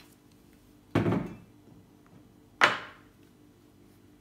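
Two dull thumps about a second and a half apart, each dying away over about half a second, over faint background music.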